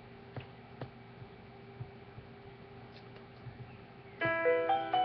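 A faint steady hum with a few light clicks, then piano music starts suddenly about four seconds in, with several distinct notes sounding together.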